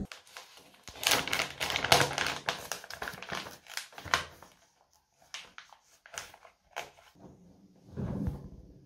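Laundry and a detergent packet being handled at a washing machine: rustling and crinkling with many small clicks and knocks, busiest in the first few seconds, then scattered clicks and a fuller rustle and thump near the end.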